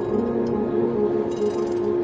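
Background music of slow, held notes.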